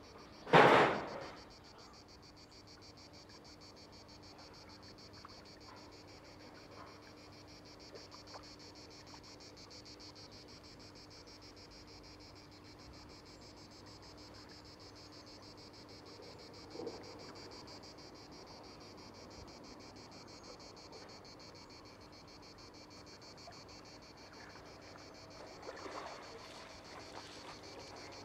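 Steady chorus of insects, a high, rapidly pulsing chirr that keeps going throughout. A short, loud sound stands out just under a second in.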